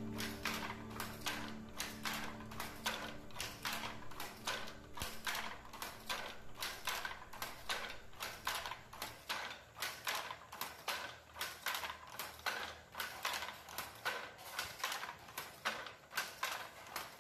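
Wooden handloom clacking in a steady rhythm, about two or three knocks a second, as the shuttle is thrown across and the beater packs in the weft. Background music fades out in the first few seconds.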